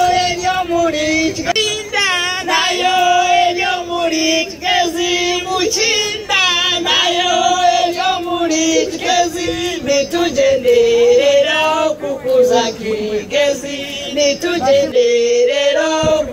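A song with several voices singing over a sustained held note that shifts pitch now and then.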